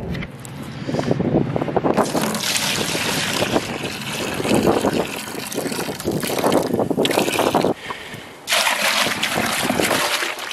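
Maple sap being poured from a plastic bucket into a five-gallon plastic bucket, a steady splashing pour with a brief lull about eight seconds in.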